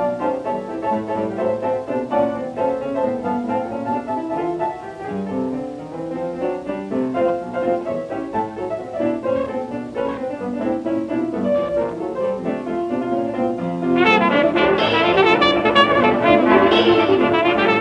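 A 1927 hot jazz band recording played from a 78 rpm record: brass and reeds over piano in a busy instrumental passage, with little top end. About fourteen seconds in, the band gets louder and fuller.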